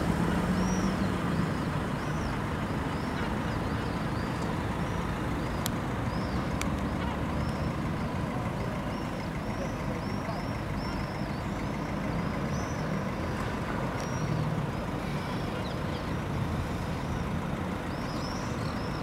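Steady city traffic rumble, with small birds chirping high and often above it.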